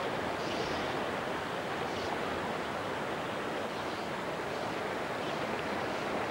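Shallow river rapids rushing steadily over stones.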